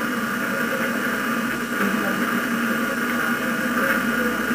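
Steady hiss with a low hum underneath: the background noise of an old, copied video recording, with no speech.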